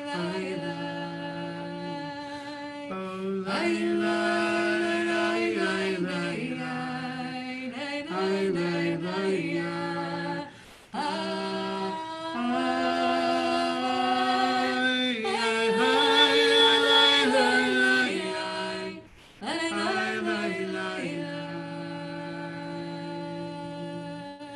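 Unaccompanied voice singing a wordless nigun in long held notes that step slowly up and down in pitch, with two short breaks for breath.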